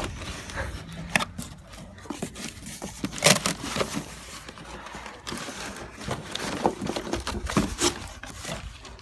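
A cardboard box and its packaging being opened and handled: irregular scrapes, knocks and rustling, with a sharper knock about three seconds in and a few more near the end.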